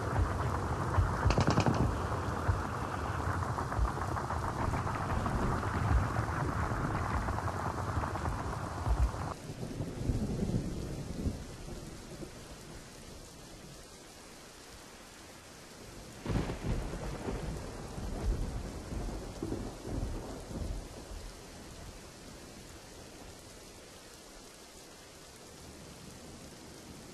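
Deep rumbling booms over a dense, rain-like hiss that cuts off abruptly about nine seconds in. About sixteen seconds in a sharp crack sets off a fresh rolling rumble, which then dies down to a faint low rumble.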